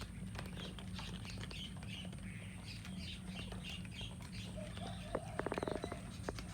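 Cats chewing and crunching food: a scatter of small sharp clicks, with a quick run of louder crunches about five and a half seconds in. Short high chirps sound behind them over a steady low hum.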